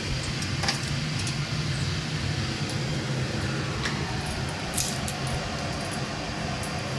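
A few light clinks and taps as whole spices (bay leaves, a dried red chilli, cumin) go into hot oil in an aluminium kadai for the tempering, over a steady low hum.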